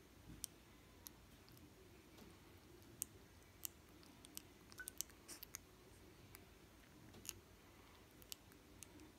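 Near silence broken by faint, sharp little clicks and smacks, scattered through and bunched around the middle: a sleeping two-week-old basset hound puppy's mouth and tongue working as it dreams.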